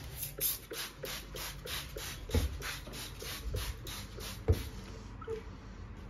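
Trigger spray bottle of domol kitchen hygiene cleaner pumped rapidly over a countertop, about four short sprays a second for nearly five seconds, with a few soft knocks among them.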